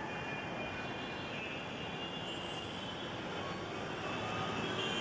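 A steady, even background rumble with no distinct knocks or clicks.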